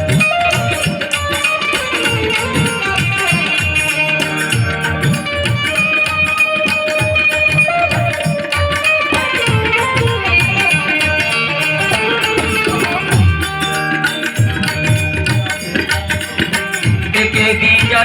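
Instrumental interlude of a folk devotional song: fast hand-drum rhythm under a gliding melodic lead, with no singing.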